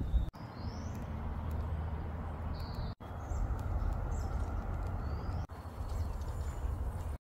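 Several birds giving short rising chirps over a steady low rumble, the kind of wind or handling noise an outdoor phone microphone picks up. The sound drops out abruptly for a moment three times, at cuts between shots.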